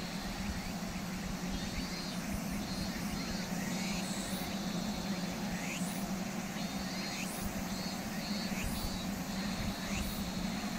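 A steady low engine drone under an even wash of outdoor noise. High rising calls repeat about every second or two, over a pulsing high-pitched buzz.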